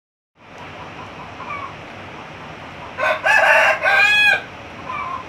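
Rooster crowing once, a cock-a-doodle-doo of about a second and a half starting about three seconds in, its last note falling away at the end. A few faint short calls come before and after it.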